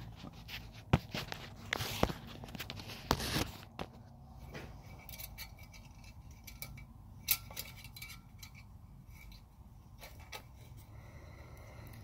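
Scattered light clicks, knocks and scrapes of hands handling a piston ring and tools at an engine cylinder bore, the sharpest knock about a second in.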